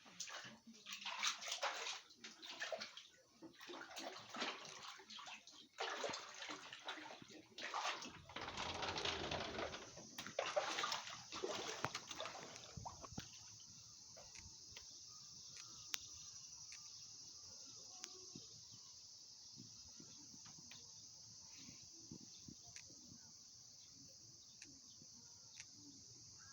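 Floodwater from torrential rain sloshing and splashing in irregular bursts for about the first twelve seconds, then giving way to a steady high hiss with occasional ticks.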